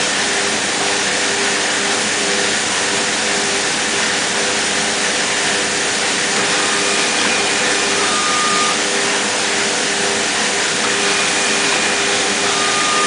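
Steady machine noise of a packing line running: a carton conveyor and a print-and-apply label printer. A faint steady hum runs under it, with a brief higher tone about eight seconds in and again near the end.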